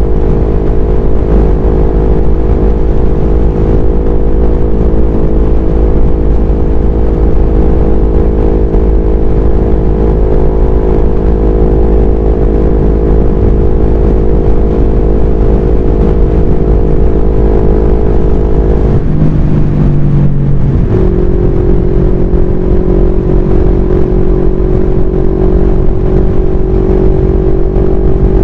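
CFMoto 400NK's parallel-twin engine running steadily at cruising speed, with wind rushing over the microphone. About two-thirds of the way through, the engine note wavers for a couple of seconds, then holds steady again at a slightly lower pitch.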